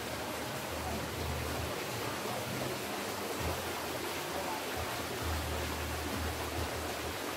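Steady outdoor background hiss with a low rumble that comes and goes.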